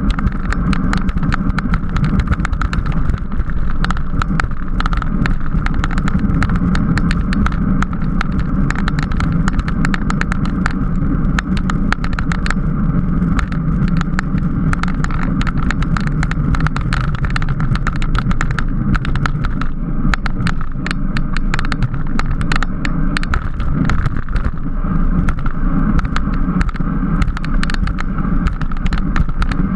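Steady wind and road noise on a camera carried on a racing bicycle at speed, with constant small rattling clicks.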